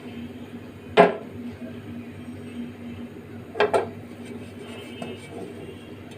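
Kitchen utensil knocking against a frying pan or dishware while pancakes cook: one sharp clack about a second in and a quick double clack a few seconds later, over a faint steady hum.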